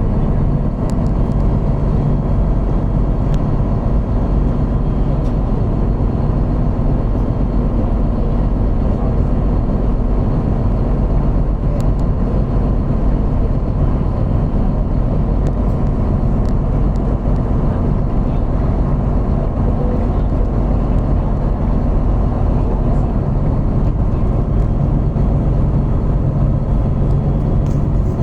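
Motor vehicle running steadily on the road, a continuous low engine and road rumble with no change in pace.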